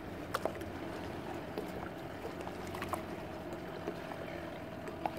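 A boat's motor running steadily, with water splashing and slapping against the hull in short irregular bursts.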